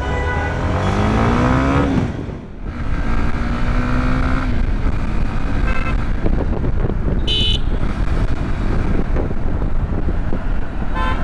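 Honda CBR150R's single-cylinder engine pulling away, its pitch rising as it revs up through the first gears with a brief dip at the change, then running steadily under road and wind noise. A short horn beep sounds about seven seconds in.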